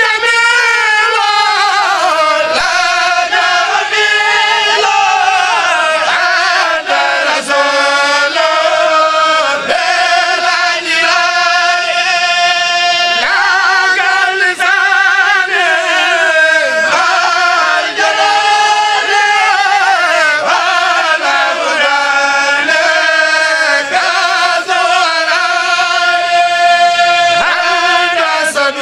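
A Mouride kourel chanting a khassida, the devotional sung poetry of the Mouride brotherhood: voices singing without accompaniment in long, wavering held notes that move step by step.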